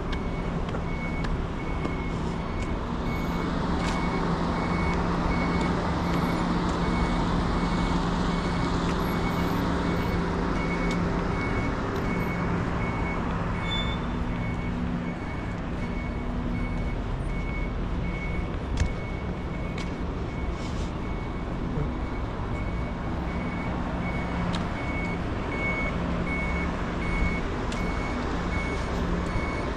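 A vehicle's reversing alarm giving a steady series of high electronic beeps over a low idling engine hum and street noise.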